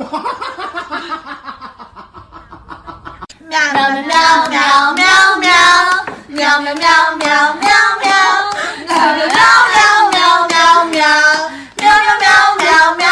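A high voice singing or wailing in long, wavering notes that slide up and down, with short breaks between them. It is loud from about three and a half seconds in, after a fainter falling tone.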